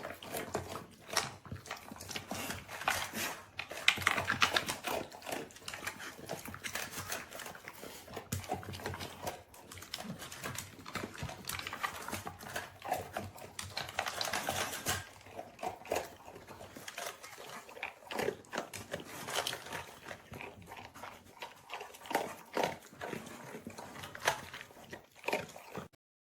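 A dog eating from a plastic slow-feeder bowl: irregular clicking and crunching of food against the bowl, with snuffling as it noses through the maze.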